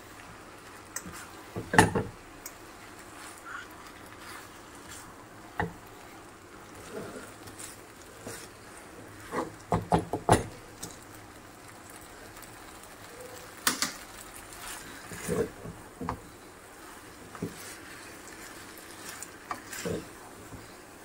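A plastic spatula tossing stir-fried noodles in a nonstick wok: scattered knocks and scrapes against the pan, coming in short clusters a few seconds apart, loudest about two seconds in and around ten seconds in.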